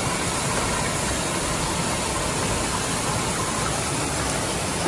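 Steady rush of river water: an even hiss with no breaks or changes.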